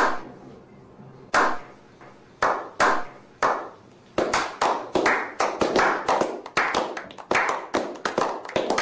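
A slow clap by a small group of people. Single hand claps come about a second apart at first, then from about four seconds in several people clap faster and overlap, building into applause.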